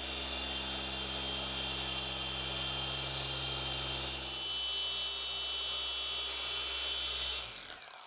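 Cordless SPTA polisher running steadily with a motor whine while its foam pad works compound into black car paint to cut out bird-dropping etching. Its tone shifts about halfway through, and it spins down and stops near the end.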